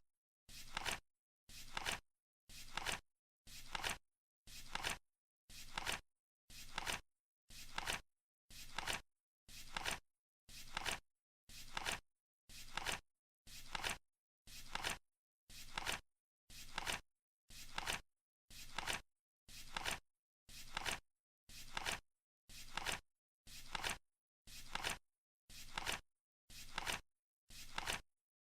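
Flip clock's number cards flipping over once every second, each flip a short noisy flap, in a steady even rhythm.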